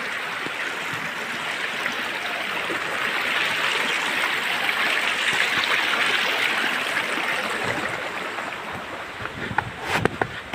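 Small rocky stream rushing over stones: a steady wash of running water that grows louder in the middle and eases off toward the end. A few short knocks sound near the end.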